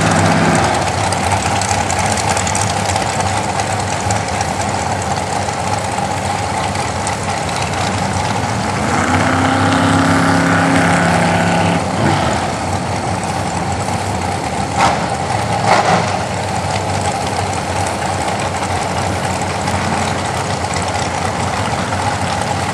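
Drag-racing dragster engines idling and running at the starting line, a loud steady rumble. Around nine seconds in one engine's pitch rises and holds for a few seconds, and two short sharp sounds come around fifteen and sixteen seconds in.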